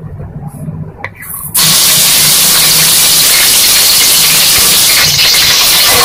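Ginger-garlic paste dropped into hot oil with cloves and black peppercorns: after a quiet second and a half with a few small spoon clicks, a loud, steady sizzle starts suddenly and keeps going.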